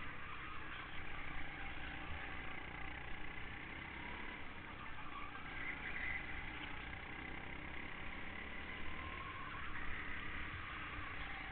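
Go-kart engine running continuously with a wavering whine as the kart laps corners, heard from an onboard mount over a steady rush of wind and road noise.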